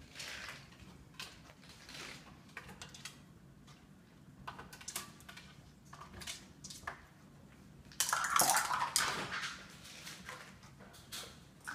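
Light plastic stacking cups clattering as a cockatoo knocks over a tower of them: scattered light clicks and taps, then a loud tumbling clatter for about a second and a half, starting about eight seconds in.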